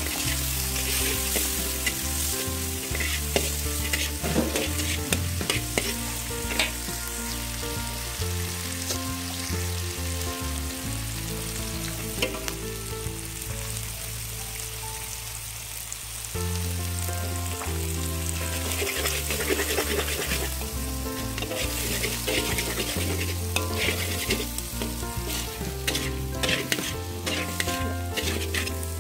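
Food sizzling in hot oil in a wok while a metal spatula stirs and scrapes the pan. Sliced shallots, garlic and chilli are frying, then shrimp, an egg and luffa chunks; the scraping comes in busy spells.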